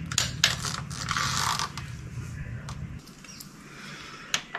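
Ratcheting torque wrench tightening a bolt up toward 72 newton meters: ratchet strokes and sharp clicks. A low background hum stops about three seconds in.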